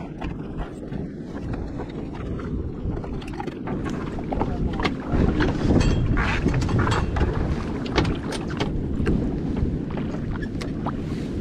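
Wind buffeting the microphone on a small boat at sea, a steady low rumble that grows louder about four seconds in, with scattered small clicks and knocks.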